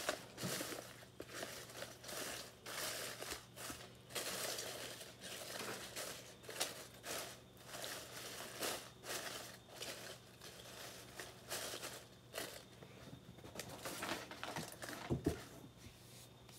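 Dry dead leaf litter crinkling and rustling in irregular bursts as a hand piles the leaves back over the substrate in a plastic tub. A single sharp knock comes near the end.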